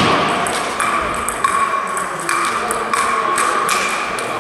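Table tennis rally played with sandpaper bats: the ball knocking back and forth off the bats and the table, about two hits a second.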